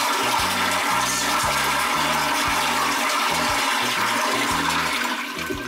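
Commercial flushometer toilet flushing: a loud rush of water through the bowl that dies away near the end.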